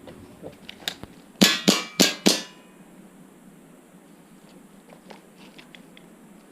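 Airsoft pistol firing a quick string of about four shots, the BBs clanging off steel plate targets with a short ring after each hit, preceded by a few lighter clicks.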